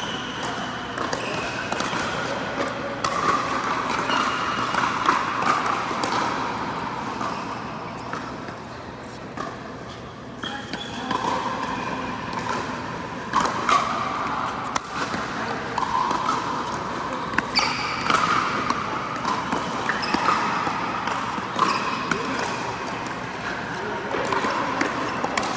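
Pickleball rally: irregular sharp pops of paddles hitting the plastic ball and the ball bouncing on the court.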